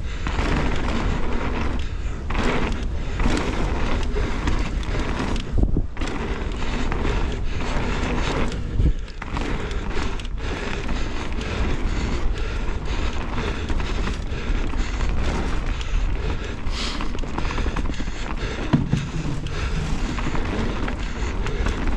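Mountain bike riding fast down a dirt and gravel trail: continuous wind rush on the camera microphone and tyre noise, with frequent knocks and rattles from the bike over bumps and a few heavier thumps.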